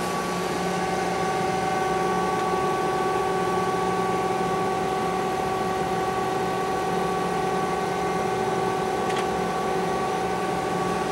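SCHAUDT E450U1000 cylindrical grinder running a traverse grinding cycle, feeding in at each table reversal: a steady machine hum with a few constant tones. A single faint click about nine seconds in.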